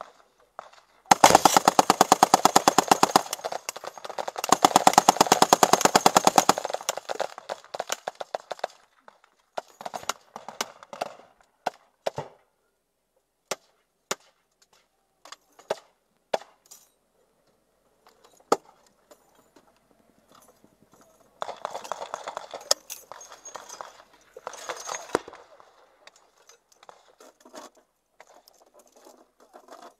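A vehicle-mounted .50-calibre M2 Browning heavy machine gun firing two long bursts of rapid, loud shots about a second in, separated by a brief pause. Scattered single shots and short bursts of gunfire follow, with another cluster of fire near the end.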